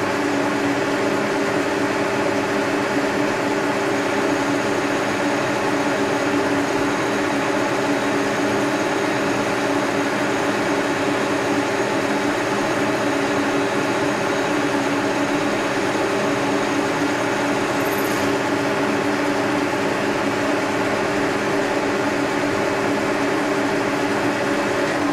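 Brown & Sharpe milling machine running steadily, its motor and vertical-head gearing giving an even hum with several fixed tones, while a tap drill is fed into the work with the quill.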